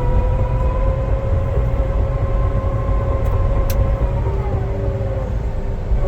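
Cat D8T bulldozer's diesel engine running under load with a low rumble and a steady whine, as the dozer is backed up. The whine slides down and fades about four to five seconds in.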